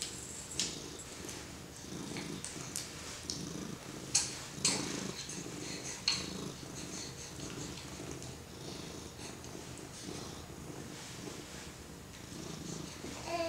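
Domestic cat purring steadily while being petted, the low rumble swelling and easing in a regular rhythm. A few soft clicks and rustles sound over it.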